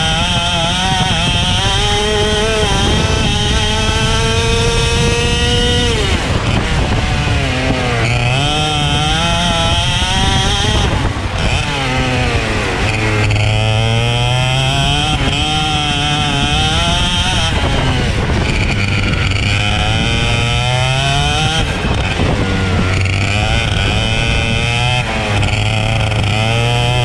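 Racing kart engine running hard. Its revs climb steadily for about six seconds, fall away sharply, then rise and fall again and again through the rest.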